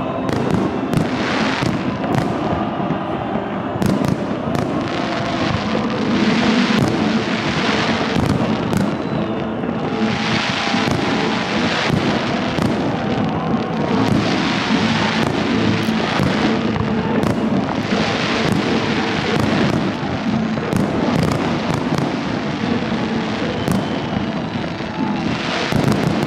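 Fireworks display: aerial shells bursting in many sharp bangs at irregular spacing, with stretches of hissing crackle in between.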